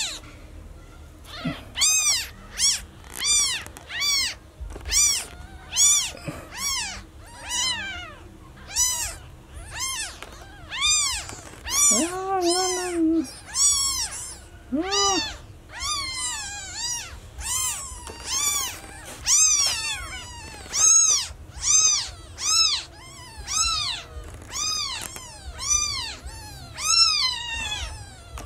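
Newborn kittens meowing: a steady run of short, high-pitched cries that rise and fall in pitch, about one or two a second, sometimes overlapping. A couple of lower calls come about twelve and fifteen seconds in. These are the loud cries of newborns separated from their mother.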